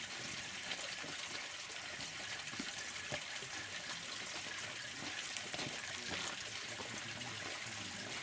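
Spring water running and splashing steadily, an even continuous trickle.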